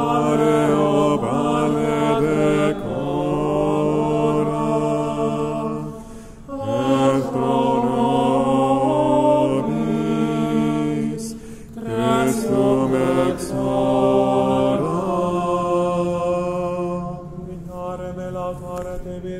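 Liturgical plainchant sung in unison by male voices in a reverberant church: long held notes that slide from one pitch to the next, in phrases broken by short breaths, growing quieter near the end.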